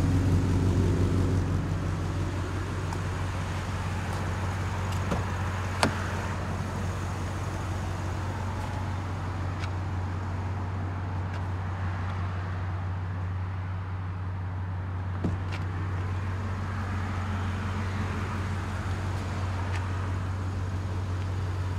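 2012 Ford F-250 pickup's engine idling with a steady low hum, with a few sharp clicks over it, the loudest about six seconds in.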